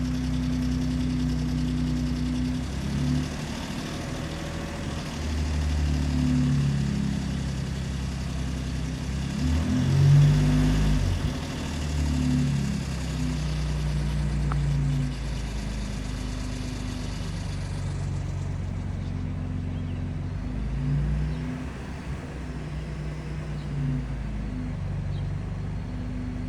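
2017 Ford Raptor's 3.5-litre twin-turbo EcoBoost V6 idling after a cold start, having sat unused for two weeks. An unidentified higher-pitched noise rides over the idle and dies away about eighteen seconds in, leaving the plain idle.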